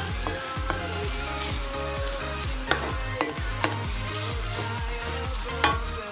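Wooden spatula stirring and scraping a sizzling stir-fry of petai beans in chili paste in a nonstick wok. The spatula knocks sharply against the pan a few times, the loudest near the end.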